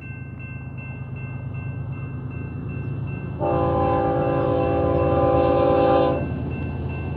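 Approaching BNSF freight train led by a GE ES44DC locomotive, its diesel rumble growing louder, sounds its multi-chime air horn in one long blast of nearly three seconds about halfway in. A grade-crossing bell rings steadily.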